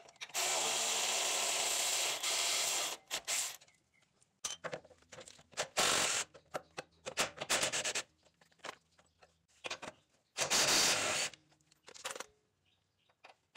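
A power ratchet or wrench runs steadily to back out a rack-and-pinion mounting bolt: one long run of about two and a half seconds, then two shorter runs later on. Between the runs come scattered ratchet clicks and the knocks of tools being handled.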